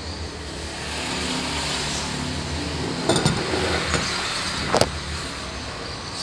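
A motor vehicle engine running steadily in the background, with tableware knocking on a table as a pot and a bowl are set down: two knocks about three seconds in and a sharp clink near five seconds.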